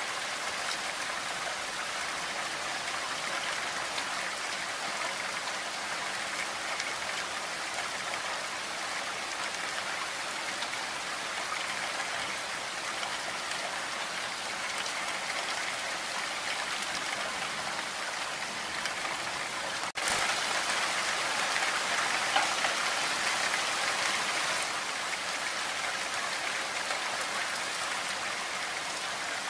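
Heavy rain falling steadily, a dense even hiss of drops. About two-thirds of the way through it cuts out for an instant, then comes back a little louder for a few seconds before settling.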